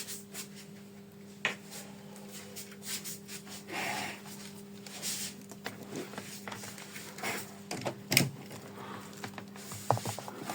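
Scattered clicks, knocks and a brief rustle from handling a Dyson cordless vacuum and its charger, over a faint steady hum.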